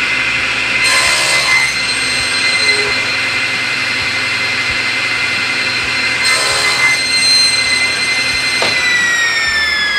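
Table saw running at speed with a steady high whine, the blade cutting through the board about a second in and again briefly around six seconds in, making a crosscut with the miter gauge. Near the end the whine falls in pitch as the blade coasts down.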